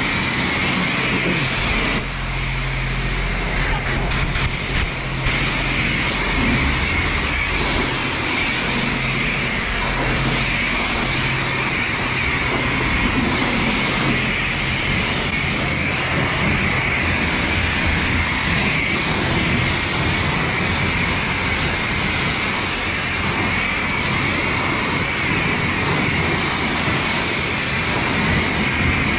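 Touchless car wash spraying the car with high-pressure water jets: a steady hiss with a low hum underneath.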